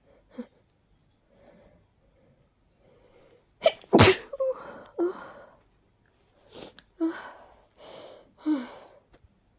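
A person's sneezing fit, brought on by allergies and a cold: a few quiet breathy inhales, then a loud sneeze about four seconds in, followed by a run of smaller sneezes.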